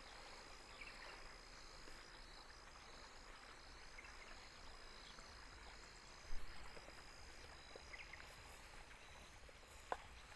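Quiet field ambience with one steady, high-pitched insect trill running throughout. A brief bump about six seconds in is the loudest moment.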